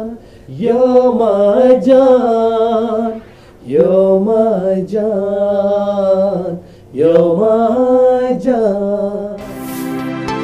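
A male voice singing a slow, melodic Bollywood-style phrase without accompaniment, in three or four long held lines with vibrato. Near the end an electronic music track with a steady drone and a regular ticking beat comes in.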